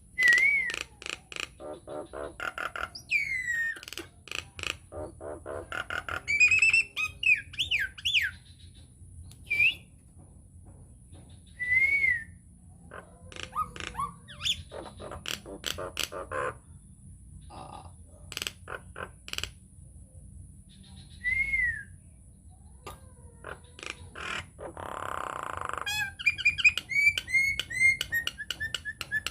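Nias hill myna (jalak nias) singing: a varied run of sharp clicks, loud arched whistles and squawks, coming in bursts with short gaps.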